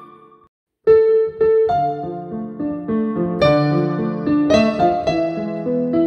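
Digital piano being played: the notes die away to a short dead silence, then the playing starts again just under a second in with chords under a melody.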